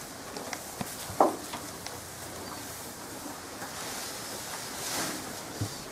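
Freshly cut grass fodder rustling as armfuls are pulled and shifted off a pile, with scattered light knocks. A single loud thud comes about a second in, and the rustling swells louder near five seconds.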